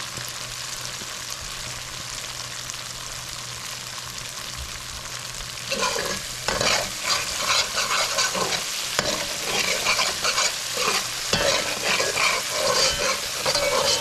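Curry masala paste frying in a pot, a steady sizzle. About six seconds in, a spoon starts stirring and scraping it around the pot in quick repeated strokes, as the curry is fried down until slightly burnt before the pumpkin is added.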